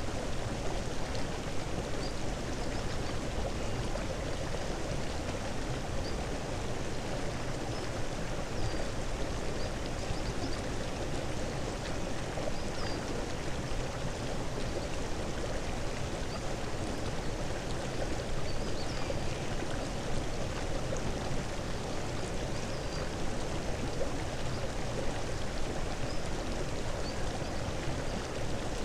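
Steady running-water noise, like a stream, with faint short high chirps now and then.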